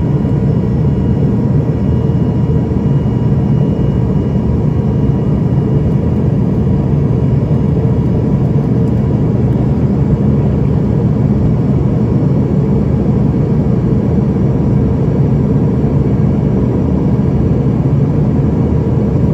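Cabin noise inside an Embraer ERJ-145 regional jet climbing out after takeoff: a steady drone of its rear-mounted Rolls-Royce AE 3007 turbofans and rushing air, with a few faint steady whining tones above it.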